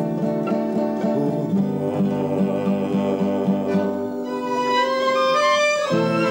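Live acoustic string music: an acoustic guitar strumming a steady rhythm, with a fiddle melody coming in about two-thirds of the way through.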